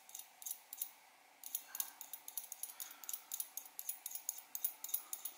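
Scalpel blade scraping brass residue off the tip of a hardened-steel Seitz jewelling reamer: a quick series of faint, light scrapes, about five a second, with a short pause about a second in.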